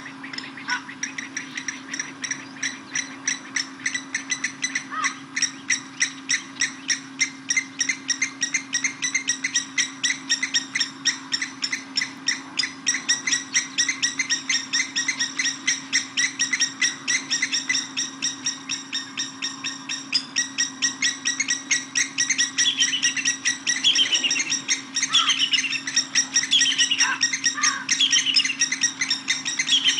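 Blacksmith lapwings calling a fast, evenly repeated series of sharp metallic 'tink' notes, like a hammer on an anvil. This is their alarm call when disturbed. From a little past the middle, another bird adds a short falling whistle every second or so.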